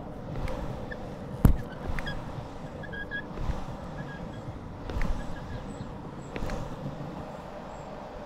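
Longboard wheels rolling on an asphalt path: a steady rumble broken by a few sharp knocks, the loudest about one and a half seconds in.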